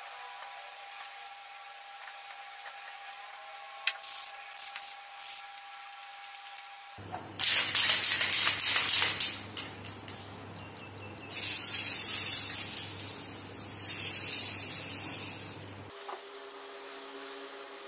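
Aerosol spray paint can spraying in three hissing bursts, the first about seven seconds in and lasting two to three seconds, the next two shorter, a few seconds apart.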